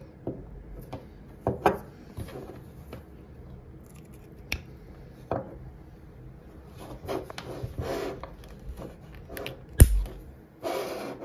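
Cables being handled and plugged into a small plastic-and-metal camera on a wooden table: rubbing and scraping with scattered small clicks. Near the end comes a sharp, loud click as an RJ45 Ethernet plug is pushed into its coupler.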